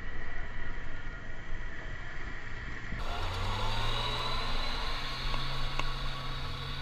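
4x4 off-road vehicle engine running. About three seconds in the sound changes abruptly to a steady engine note that slowly rises in pitch.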